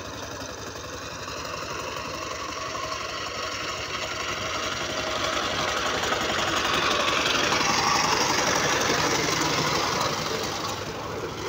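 12-horsepower single-cylinder diesel engine of a two-wheel power tiller, running under load with a steady rapid chugging pulse as it tills the field. It grows louder as the tiller comes close, loudest about two-thirds of the way through.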